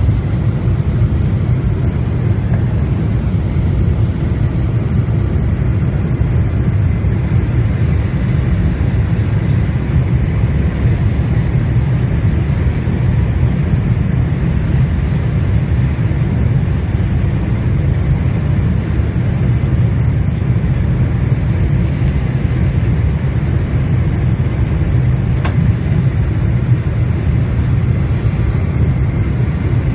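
Steady cabin noise inside a Boeing 747-8: an unchanging deep rumble of engines and airflow. A single faint click sounds about 25 seconds in.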